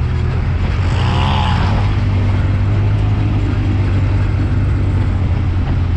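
Side-by-side off-road vehicle driving over beach sand, its engine running steadily under a heavy low rumble, with a brief rise and fall in pitch about a second in.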